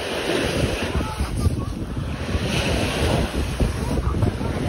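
Wind buffeting the microphone over a steady rushing noise, with a few faint short chirps.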